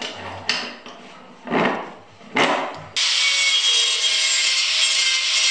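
A few knocks and scrapes as a chunk of oak firewood is set in a bench vise. About three seconds in, an angle grinder cuts into the oak and keeps up a steady, loud rasping grind.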